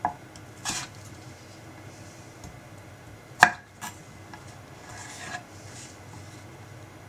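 Kitchen knife slicing through kabocha squash and striking a wooden cutting board: several sharp knocks, the loudest about three and a half seconds in.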